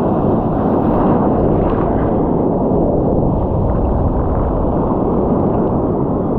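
Wind buffeting the microphone over the rush of breaking surf, a steady, loud noise.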